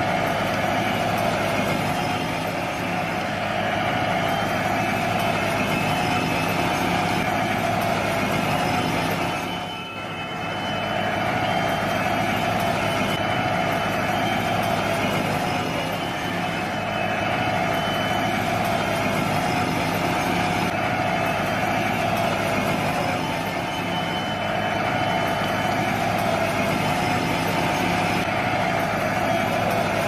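Toy tracked excavator running: a steady mechanical drone that dips briefly about ten seconds in.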